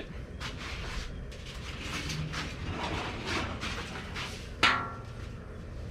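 Rustling and scraping of objects being handled and set up, with one sharp clank that rings briefly about four and a half seconds in.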